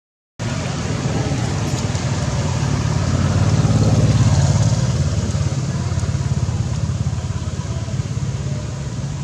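A motor vehicle's engine hum, rising to its loudest about four seconds in and then fading, as a vehicle passing by would. It starts after a brief moment of silence.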